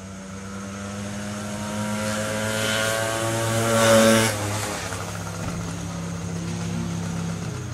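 A motor vehicle's engine passing by, building up to its loudest about four seconds in and then falling away, over a steady low hum.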